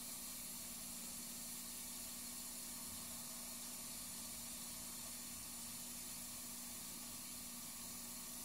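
Faint, steady room noise: an even hiss with a low, steady hum underneath.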